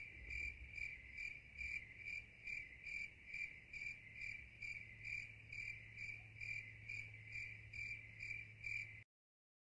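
Faint insect chirping in an even pulsing rhythm, about two to three chirps a second, over a low steady hum; it cuts off suddenly near the end.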